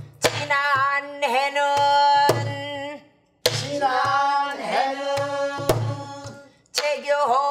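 Pansori-style singing of long, held and wavering notes, beaten in time by a wooden stick on a buk barrel drum. There are two sung phrases with a short pause about three seconds in, and a third phrase begins near the end.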